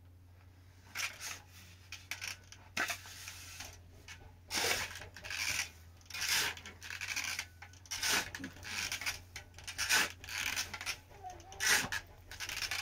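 Metal shovel scraping and scooping sand across a dusty floor in repeated strokes, about one a second, starting about a second in and growing louder partway through.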